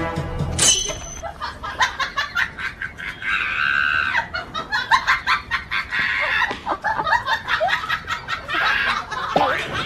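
Chickens squawking and clucking in quick, repeated bursts, with scattered short knocks and scuffles.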